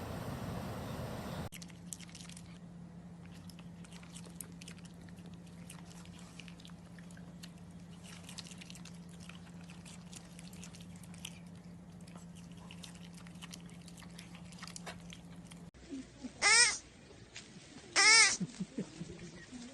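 An animal chewing, with soft crackling clicks over a steady low hum; near the end, two loud, high, wavering cries from an animal.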